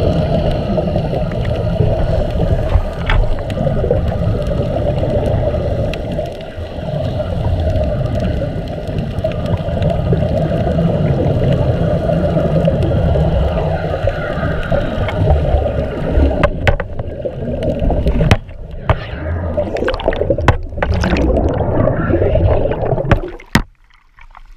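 Steady muffled underwater rumble and bubbling around an air-fed sea-walker diving helmet. A few seconds before the end the camera comes up out of the water with knocks, splashing and sloshing.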